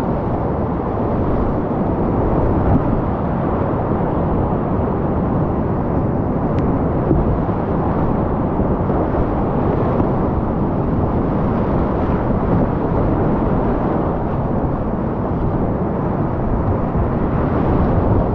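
Whitewater rapids rushing and churning around a kayak, heard up close from the paddler's position. It is a loud, steady, deep rush of water with little hiss on top.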